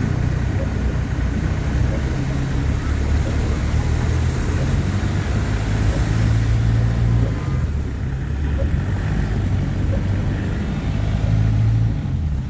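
A motor vehicle's engine running steadily, with a steady rushing noise over it.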